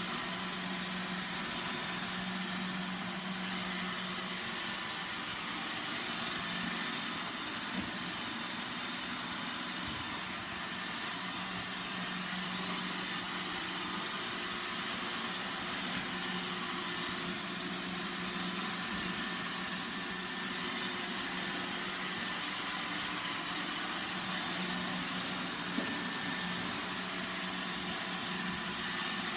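Roomba 960 robot vacuum running: a steady whir of its motor and brushes over a constant low hum, with a faint tick about eight seconds in and another near the end.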